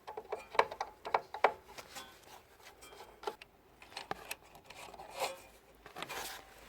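Hand work on a DeWalt table saw's motor: clicks, knocks and scraping rubs as the carbon brushes are taken out and checked, a first step in finding why the saw won't start.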